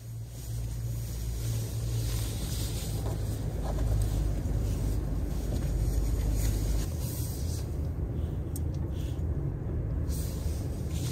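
Steady low rumble of a vehicle running, with an even wash of road-like noise above it; the deepest part of the rumble shifts about seven seconds in.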